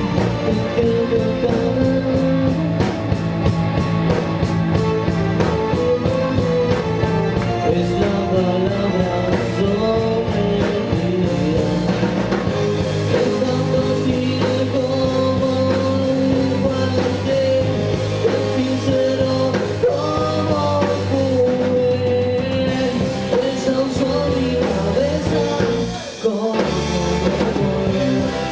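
Rock song with a singing voice over guitar and drums, loud and steady, with a brief drop in loudness near the end.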